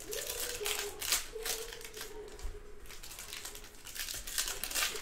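Trading-card pack wrapper crinkling and rustling in uneven spurts as a pack is opened and the cards inside are handled.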